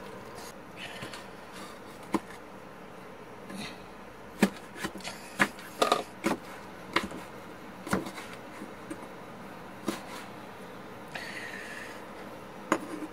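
Kitchen knife slicing fresh red chili peppers on a wooden cutting board: irregular sharp knocks of the blade striking the board, a dozen or so, bunched most closely about halfway through.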